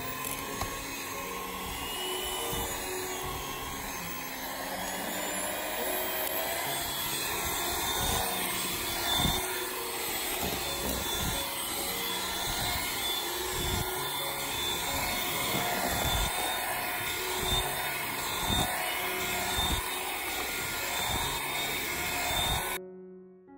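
Electric hand mixer running steadily, its beaters churning butter, egg yolks and sugar into the base dough for cookies, with occasional knocks. The sound stops suddenly just before the end.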